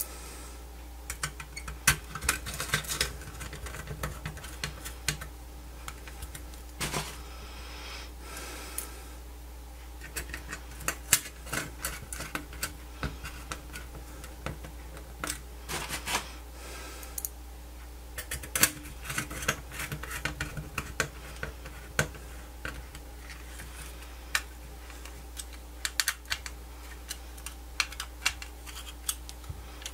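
Irregular small clicks, taps and short scrapes of a multimeter's circuit board, metal shield and screws being handled and worked with a small screwdriver and tweezers, over a steady low hum.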